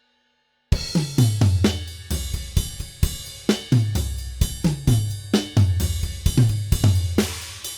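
Sampled acoustic drum kit from the Stigmatized Drummer Kontakt library playing a fast pattern of kick, snare and cymbal hits, starting after a brief pause under a second in. It ends on a final cymbal crash that rings out and fades.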